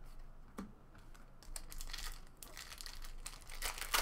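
Foil wrapper of an Upper Deck hockey card pack crinkling and tearing as it is opened, starting about a second and a half in and loudest near the end. A few light clicks of cards being handled come first.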